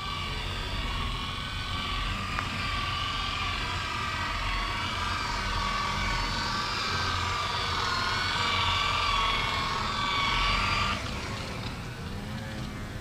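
Electric polisher buffing paint, its motor whine wavering in pitch as it is pressed and eased against the surface, cutting off suddenly near the end.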